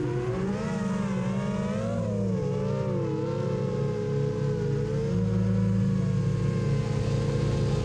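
Brushless motors and 7-inch propellers of an FPV racing quadcopter whining, the pitch rising and falling as the throttle changes, with steady low music notes beneath.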